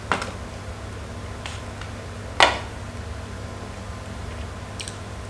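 Close-miked eating sounds of a person chewing fried chicken: two sharp mouth clicks about two seconds apart, the second the loudest, and a fainter one near the end, over a low steady hum.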